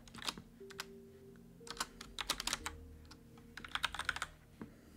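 Typing on a computer keyboard: several short bursts of rapid keystrokes with pauses between them.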